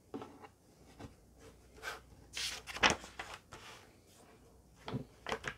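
Paper catalogue pages being turned by hand: a series of rustles and flaps, the loudest a little under three seconds in, with a few softer rustles near the end.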